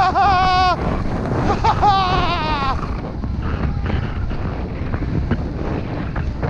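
Wind rushing over the camera microphone and skis scraping on snow during a downhill run. In the first three seconds there are two long, wavering high-pitched vocal whoops.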